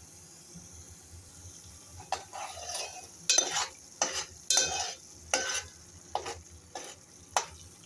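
A steel spoon stirring and scraping thick fried onion-tomato masala against the sides of a metal pot, in about nine short strokes starting about two seconds in. The masala has been fried until the oil separates.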